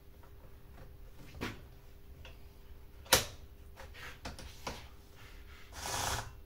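Scattered clicks and knocks of the Scheppach CSP41 chainsaw's parts being handled and fitted together during assembly, with one sharp click about three seconds in and a brief rustle near the end.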